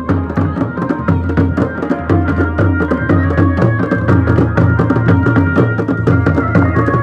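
Live folk wedding music: dhol drums beaten in a fast, steady rhythm, with a melody instrument holding sustained notes over them.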